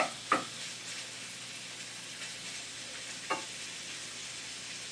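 Minced beef frying in a pan with onions and garlic, a steady sizzling hiss, with two brief scrapes of the stirring utensil against the pan, just after the start and again about three seconds later.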